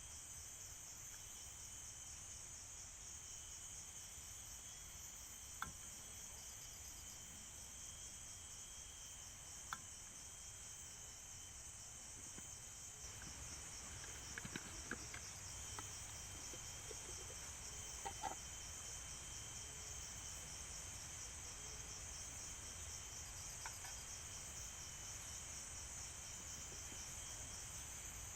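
Steady, shrill chorus of forest insects with a fast pulsing trill. A few sharp clicks and knocks stand out above it at scattered moments.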